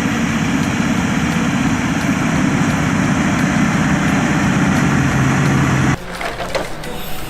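Heavy logging machinery running loud, with a dense crunching and splintering of wood over the engine. It cuts off suddenly about six seconds in, giving way to a quieter vehicle sound.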